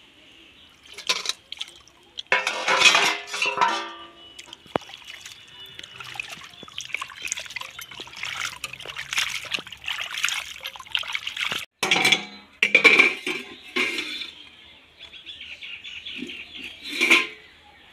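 Water splashing and sloshing in a steel pan as hands scrub and rinse pieces of goat skin. It comes in uneven bursts with an occasional sharp knock of the metal pan.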